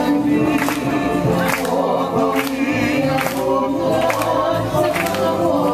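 Polynesian song: several voices singing together over a steady drum beat, a little more than one beat a second.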